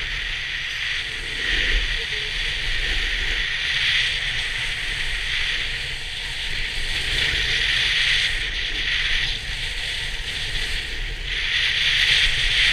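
Skis scraping and hissing over groomed, track-cut snow, the hiss swelling and easing turn by turn and growing louder near the end, over a low wind rumble on the action camera's microphone.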